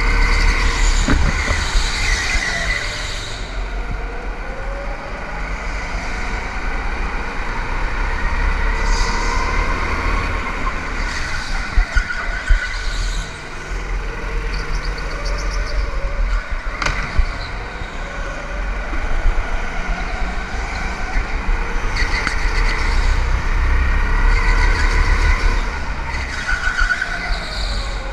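Go-kart engine running at speed, its pitch repeatedly rising and falling as it revs up and backs off, over a heavy low rumble. There are a couple of sharp knocks around the middle.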